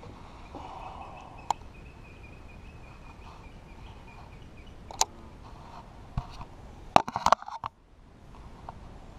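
Sharp clicks and knocks of fishing tackle being handled on a plastic kayak, single clicks at first and a quick cluster of them about seven seconds in, over a faint, thin, steady high tone for a few seconds near the start.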